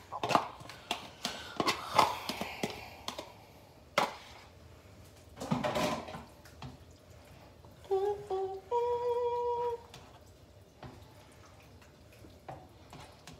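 Ricotta cheese being spooned from its tub into a mixing bowl: a run of light knocks and taps of spoon against tub and bowl, with a short scrape. About eight seconds in, a brief pitched tone steps up and holds for about a second.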